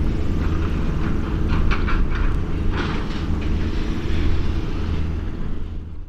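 Steady low drone of distant engine noise, with a few short hissy bursts higher up about a second and a half and three seconds in.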